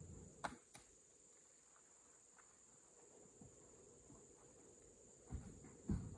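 Faint steady high-pitched insect buzz, with a couple of clicks about half a second in and a few dull thuds near the end.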